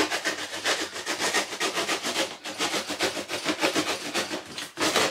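Box cutter blade sawing through the cardboard at the corner of a box, a fast run of rasping back-and-forth strokes, several a second.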